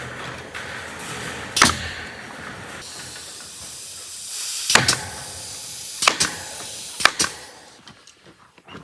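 Four sharp knocks, a second or more apart, over a steady hiss; it drops quieter near the end.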